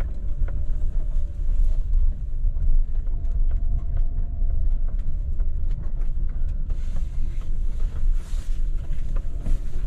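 Van driving slowly on a dirt road, heard inside the cab: a steady low rumble of engine and tyres with a faint steady hum above it and scattered small clicks and knocks.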